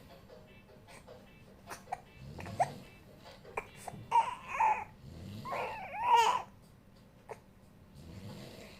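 A man snoring in slow, deep breaths about every three seconds, and a baby crying in short whimpering bursts between the snores, loudest about six seconds in. The baby is frightened by the snoring.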